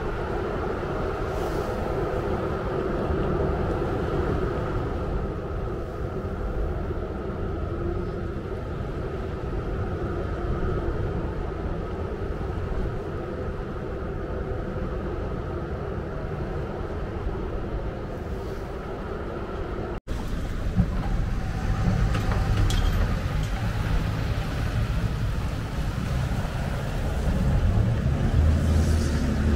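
Car ferry's engines and propellers running as it manoeuvres beside the dock: a steady low drone with a few held tones. About two-thirds of the way through the sound cuts suddenly to a louder, rougher low rumble of vehicles at the ferry ramp.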